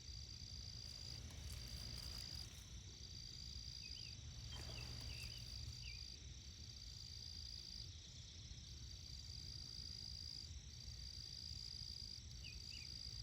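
Faint insects trilling outdoors: a high-pitched buzz repeating in trills about a second long with short gaps, with a few faint bird chirps.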